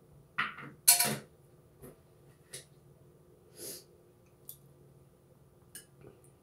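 Chicken noodle soup being eaten close up: a short burst and then a loud slurp in the first second or so, followed by a few soft clicks and mouth sounds from the spoon and bowl.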